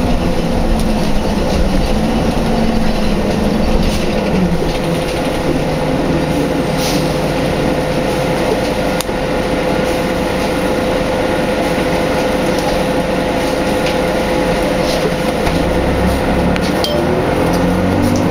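Cabin sound of a 2003 Orion VII bus with a Detroit Diesel Series 50 engine under way: steady engine and road rumble with a constant whine. The engine note falls in the first few seconds and climbs again near the end as the bus picks up speed.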